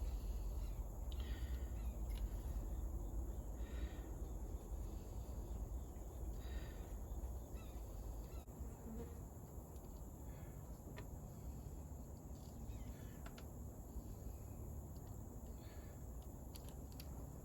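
Faint intermittent ticks and short rasps of wrench work on the mower's starter solenoid nuts, over a steady high insect drone and a low rumble.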